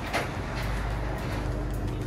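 Low steady hum and rumble of supermarket ambience while walking in through the entrance, with one sharp knock just after the start.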